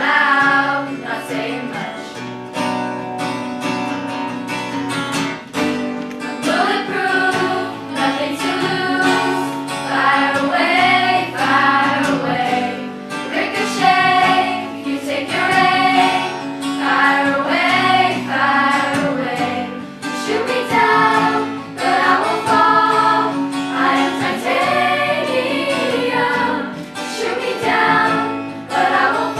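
A choir singing a song in unison phrases with instrumental accompaniment that includes a strummed guitar.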